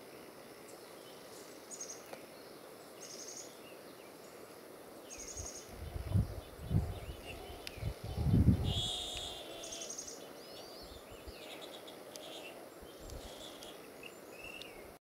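Outdoor ambience with small birds chirping: repeated short, high, buzzy trills and a few quick gliding notes. About six to nine seconds in, a few low bumps and rumbles, the loudest sound in the stretch.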